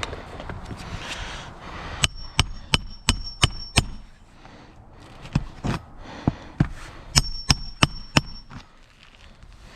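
Hammer driving nails into roof shingles: two runs of quick blows, about three a second, each with a short metallic ring, with a few scattered taps between them.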